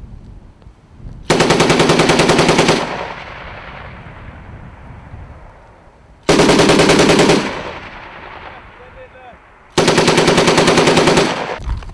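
M240B 7.62 mm medium machine gun firing three short bursts, about a second to a second and a half each, a few seconds apart, each followed by a fading echo.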